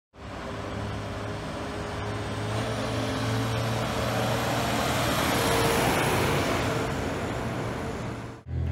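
Diesel farm vehicles passing on a road, a tractor hauling a bale trailer alongside a combine harvester: engine and tyre noise with a steady hum, swelling to its loudest a little past the middle and then easing off.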